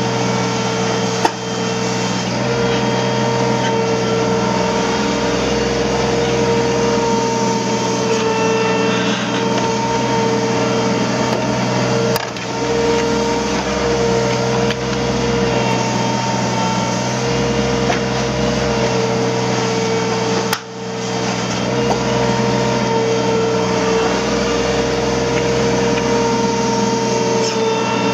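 Hydraulic excavator running: a steady diesel engine with a steady high whine from its hydraulics, briefly dropping three times.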